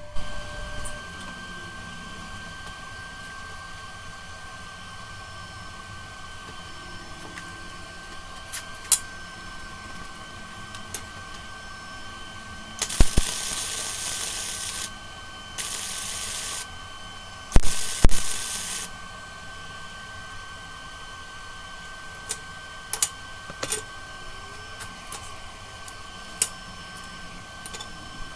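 Three short bursts of hissing, the first about two seconds long and the others about a second each, each starting with a sharp crack. A steady hum and scattered light clicks and taps run underneath.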